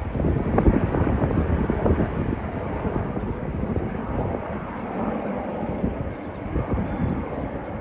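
Twin-turbine Puma HC2 helicopter in flight, its rotor and engine noise heard as a steady rush.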